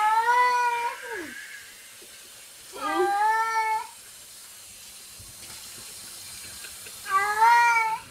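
A cat meowing three times while being bathed, each meow long and drawn out, the first sliding down in pitch at its end. Running water from a sink sprayer hisses steadily underneath.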